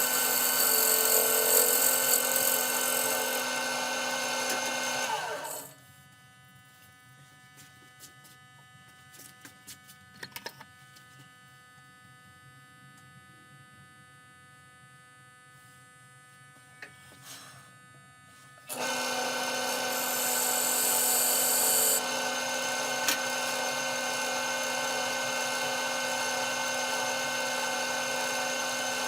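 Wood lathe running steadily, with a tool working the spinning walnut blank at times. About six seconds in the sound drops away to a low hum with a few light clicks, and it starts up again about thirteen seconds later.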